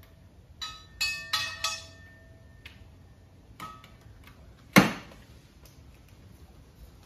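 Steel lifting chain of an engine hoist clinking and rattling against the engine and hook. A quick run of ringing metallic clinks comes about a second in, with a couple of fainter clinks after, then one sharp knock about five seconds in.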